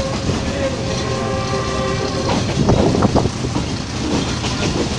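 Passenger train rolling out along the track, the steady running noise of the carriages heard from an open doorway, with a steady tone that stops about two seconds in.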